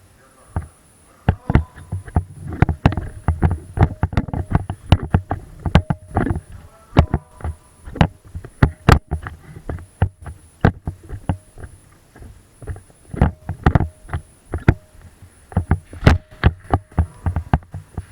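A dense, irregular run of sharp clicks and knocks, several a second and bunched in places, many with a dull thud beneath.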